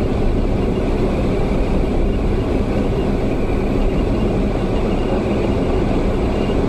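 Steady rumble of a car's engine and road noise heard from inside the cabin.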